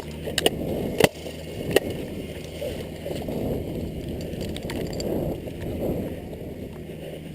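A few sharp snaps about a second apart, the loudest about a second in, over a steady rough rumble of movement and wind on the microphone.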